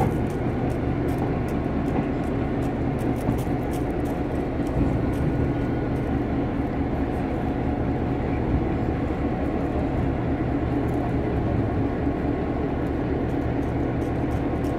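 Diesel-electric locomotive's engine idling, a steady low rumble that holds even throughout.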